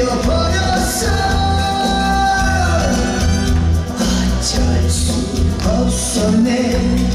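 A Korean trot song performed live: a backing track with a steady bass beat, and a male singer singing over it into a microphone.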